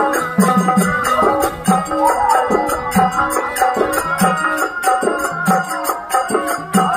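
Indian folk music played live on harmonium and hand drums: a harmonium melody over held notes, with a steady drum beat.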